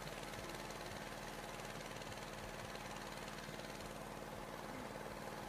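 A small engine running steadily at idle, a continuous even hum.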